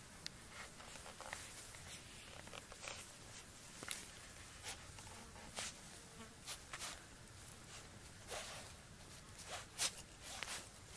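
Faint rustling of long grass: short, scratchy brushes at irregular intervals as Labradoodle puppies move through it and blades brush against the microphone.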